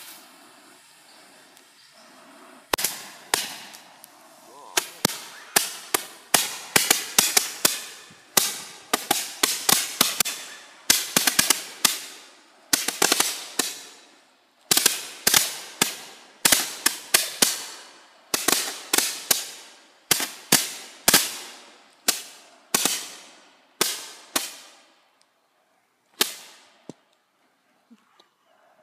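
Fireworks going off in a long, rapid series of sharp bangs and crackling reports, several a second in bursts, that stops about three seconds before the end with two last single cracks.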